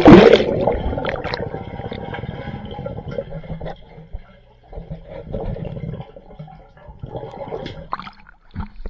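A loud splash as the camera goes under the surface of a swimming pool. It is followed by muffled underwater gurgling and bubbling that swells and fades.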